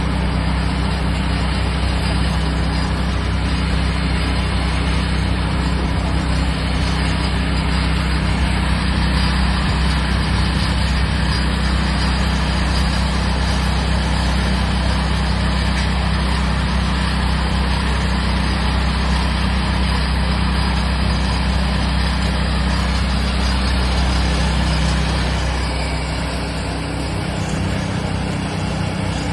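Pressure washer's engine running steadily under load while its water jet sprays and hisses against greasy pavement; the level dips briefly near the end.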